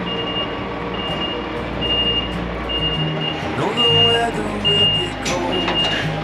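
Truck reversing alarm beeping evenly, a little more than once a second, over the rumble of idling diesel truck engines. A short rising squeal and a few sharp knocks come around the middle.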